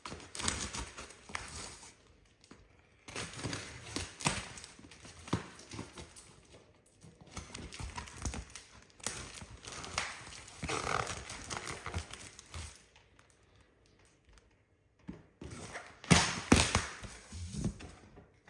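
Irregular knocks, clicks and rustling of things being handled, with a quieter stretch past the middle and louder knocks near the end.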